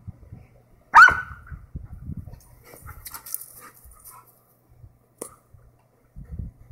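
A dog barks once, loud and short, about a second in, during a fence-line chase between two dogs. A much shorter sharp sound follows about four seconds later, with low scuffling noises in between.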